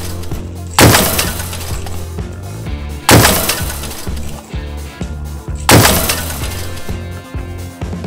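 Background music with a steady beat, cut by three loud crash sound effects, each a sudden hit that fades over about a second: one just under a second in, one about three seconds in, one near six seconds.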